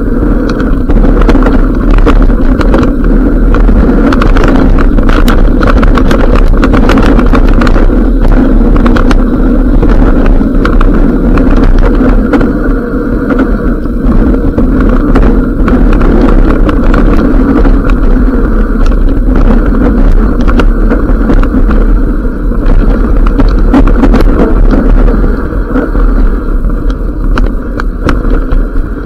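Loud wind rumble on an action camera's microphone mixed with a mountain bike's tyre noise on a rough dirt and gravel descent, with frequent rattles and knocks as the bike hits bumps. It eases a little near the end as the rider slows.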